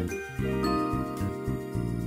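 Background music with a light melody of short high notes over a pulsing low line.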